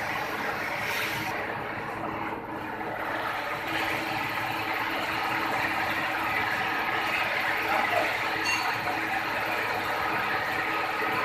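Steady mechanical noise from tyre retreading machinery as the mould holding a tractor tyre is opened; the noise grows a little louder and denser after about four seconds.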